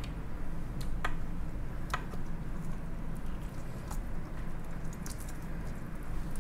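Lobster meat being picked out of cracked shell by hand on a wooden cutting board: a few small, sharp clicks and crackles of shell over soft, squishy handling of the meat.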